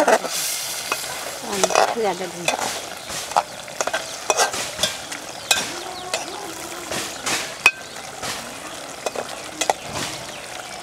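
A metal spoon stirring curry in a metal pot, with repeated sharp clinks and scrapes against the pot over a steady sizzle of the cooking.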